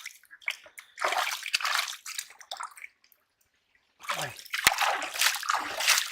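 Irregular sloshing and splashing of shallow water being worked by hand, in uneven bursts, with a sharp click about the middle and a brief silent break.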